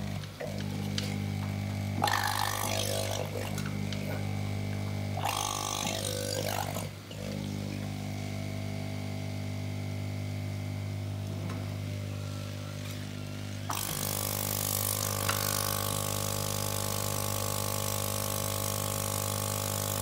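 A steady low machine hum with even overtones. Brief noisy bursts come about two and five seconds in, and a steady hiss joins about fourteen seconds in.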